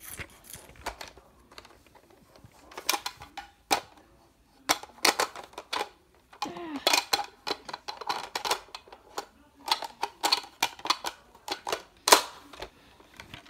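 Plastic clicks and clacks of a Nerf toy blaster being handled, in irregular clusters, with the loudest clack near the end.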